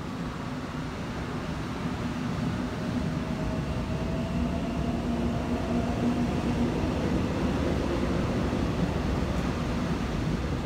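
Seoul Metro Line 1 first-batch electric train pulling away from the platform. Its motors whine, rising in pitch over the first several seconds, over a rumble that grows steadily louder as it picks up speed.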